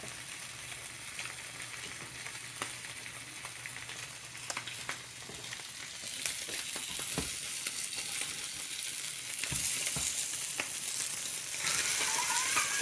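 Slices of Spam sizzling as they fry in a pan, a steady hiss that grows louder about six seconds in, with a few light clicks.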